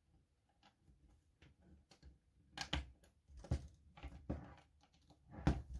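Light clicks and taps of a small Allen key turning hex screws out of a plastic gel blaster. They are faint at first, with four or five sharper knocks in the second half.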